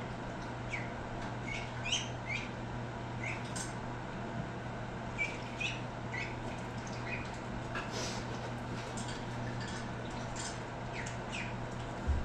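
Birds chirping: short, high, downward-sliding chirps, a few a second at irregular intervals, over a steady low hum. A dull bump near the end.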